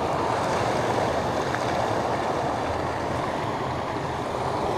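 Water rushing steadily over a weir and churning below it, an even, unbroken rush.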